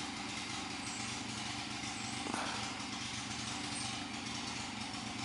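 Steady low hum of an engine running at idle.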